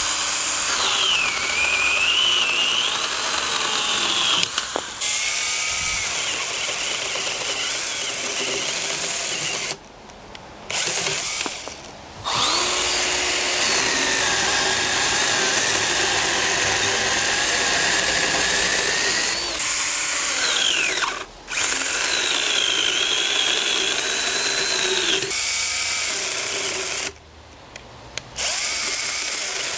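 Battery-powered 12-volt pruning chainsaws cutting through a green branch one after another, first a Stihl, then a Milwaukee, then a Makita. The motor and chain whine drops in pitch as the chain bites into the wood and rises again as it cuts free, with short breaks between cuts.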